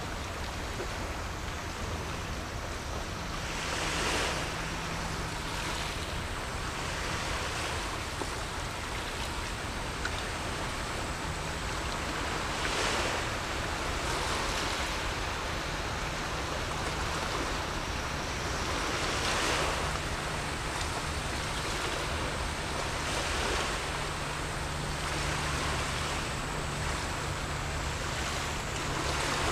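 Small waves washing onto the shore, each wash swelling and fading every few seconds.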